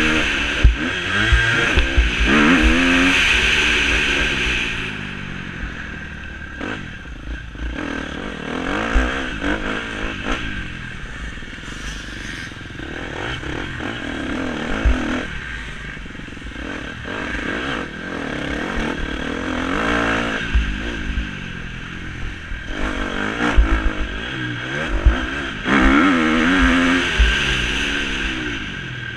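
Motocross bike engine revving hard and falling off the throttle again and again, loudest in the first few seconds and near the end. Knocks and rattles from the bike bouncing over the dirt track run through it.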